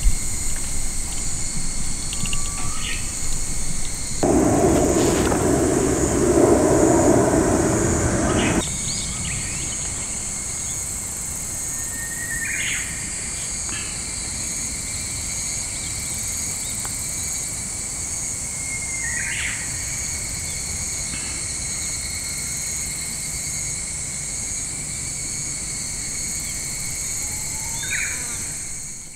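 Rural summer ambience: insects chirring steadily on several high tones, with a few short bird chirps. A louder rushing noise lasts about four seconds, starting about four seconds in, and the sound fades out at the end.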